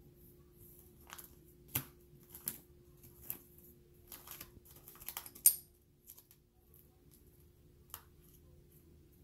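Plastic coin album pages being turned and handled with coins in their pockets: a scatter of light clicks and crinkles, the sharpest a little past halfway.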